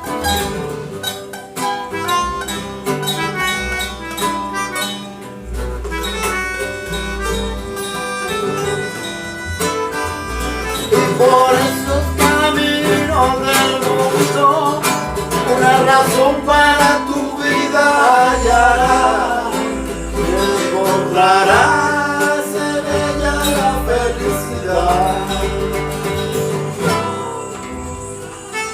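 Acoustic ensemble music: plucked guitars over deep bass notes. About ten seconds in a wavering lead melody enters and becomes the loudest part.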